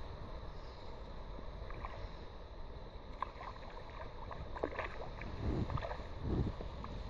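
A hooked fish splashing at the water's surface, several short splashes in the second half, the loudest two near the end. Wind rumbles on the microphone throughout.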